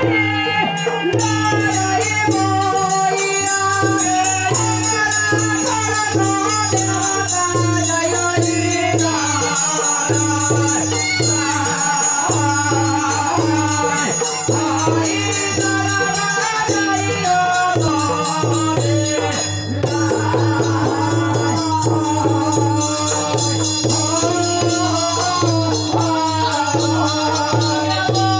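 Live devotional folk song (bhenti): a male singer on a microphone, backed by a dholak barrel drum and a steady rattling hand-percussion beat.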